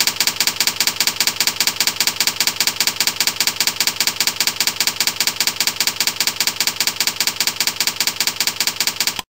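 Typing sound effect, a rapid, even run of key clicks about eight or nine a second, stopping abruptly near the end.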